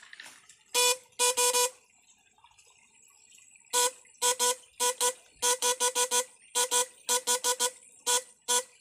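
Homemade electric fishing rig buzzing at one steady pitch in short, irregular bursts as its current is switched on and off into the creek water. There are a few bursts about a second in, then a quick run of them from about four seconds on.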